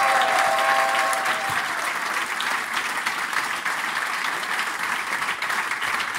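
Audience applauding, a dense steady clatter of clapping. The last held notes of the waltz music fade out about a second in.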